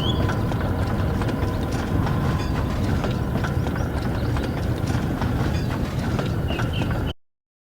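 Dubbed Thomas & Friends-style train sound effects: a steady running rumble with rolling stock clattering over the rail joints, and a short warbling high tone at the start and again near the end. It all cuts off abruptly about seven seconds in.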